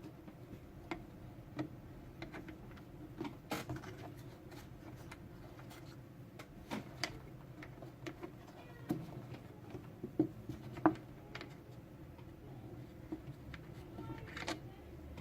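Scattered light clicks and taps of hand tools, screws and plastic headlight parts being handled, with two sharper knocks about two-thirds of the way through.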